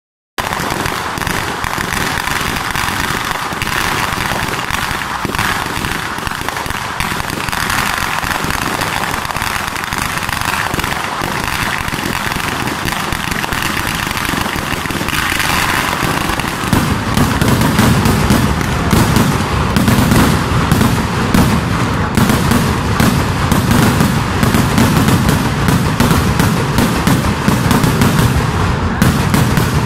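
Kerala festival fireworks (vedikkettu): a dense, continuous rapid-fire crackle of firecracker bursts. About seventeen seconds in it grows louder and heavier, with deeper blasts, as rockets start going up.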